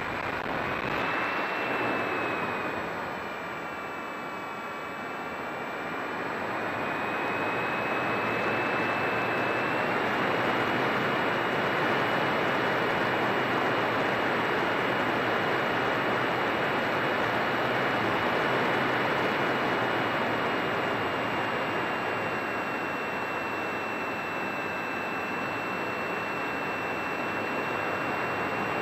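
Radio-controlled model airplane's motor and propeller heard from onboard in flight: a high whine over heavy rushing airflow noise. About three seconds in, the whine drops in pitch and the sound quietens; it rises again and holds steady from about ten seconds in.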